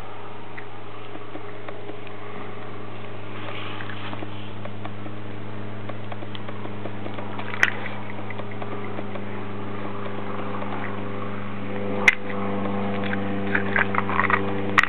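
A steady low mechanical hum, with a couple of single sharp clicks. Near the end comes a run of small irregular clicks from a Bernese mountain dog puppy's teeth working a small plastic cap.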